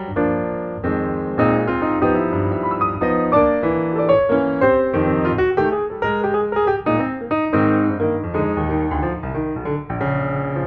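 Background piano music, a flowing stream of notes with no pause.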